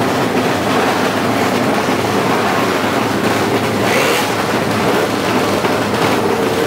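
Drag-race motorcycle engines running in a dense, steady roar, briefly louder and brighter about four seconds in.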